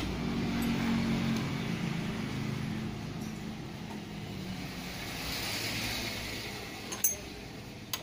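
Two or three sharp metallic clinks near the end as a ring spanner is fitted onto the front axle nut of a Honda Supra X 125D, over a low vehicle engine hum that fades over the first few seconds.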